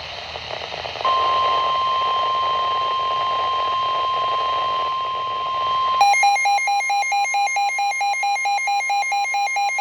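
NOAA Weather Radio warning alarm, a steady high 1050 Hz tone over radio static, starting about a second in. About six seconds in, a fast pulsing beep, about four a second, joins it, and both cut off sharply at the end; the alarm signals a warning broadcast about to follow.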